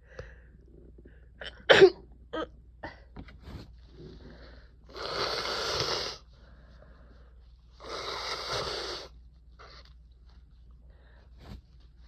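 A person with a head cold sneezes once, sharply, about two seconds in. A few short sniffs follow, then two long, rough breaths about a second each.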